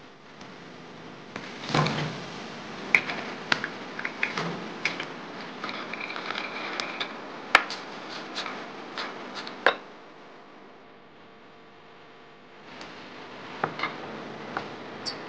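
Chopsticks clinking and scraping against a ceramic bowl while tossing small fried potatoes in seasoning: scattered sharp clicks with a quiet pause partway through.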